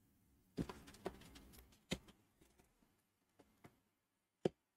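Hands handling and opening a cardboard product box: a scattering of light taps and knocks, with a short scraping rustle of cardboard early on and a sharper knock near the end.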